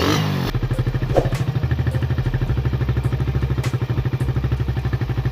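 Suzuki Raider 150's single-cylinder engine settling from a rev into a steady idle about half a second in, with an even, rapid beat.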